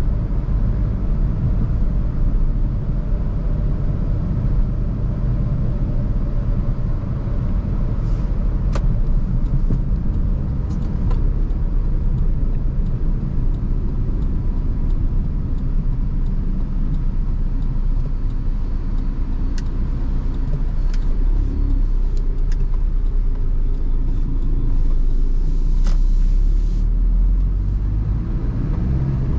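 Maruti Suzuki Swift Dzire on the move, a steady low rumble of engine and road noise with a few faint ticks. A brief hiss comes near the end.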